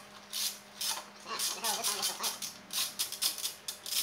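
Metal rattling and scraping in a run of short irregular strikes as the stock exhaust pipe of a small 150cc motorcycle is wiggled loose from its mounting and pulled off.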